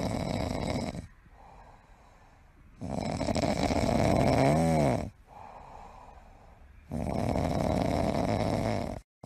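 French bulldog puppy snoring: three long snores about three seconds apart, with quieter breaths between. The middle snore carries a brief whistle that rises and falls.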